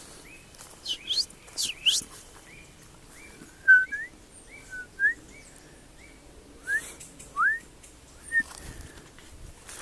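Small birds calling: a short high note repeats about twice a second for most of the clip, with louder clear whistled notes that sweep upward in pitch, heard in ones and twos near the start, in the middle and near the end.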